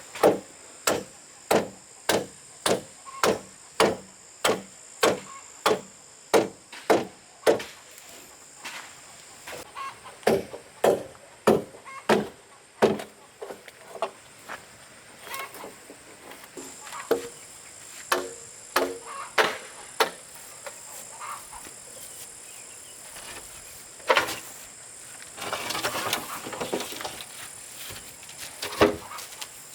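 Repeated hard strikes of a hand tool, like chopping: about two a second for the first eight seconds, then irregular and sparser, with a few louder single blows near the end.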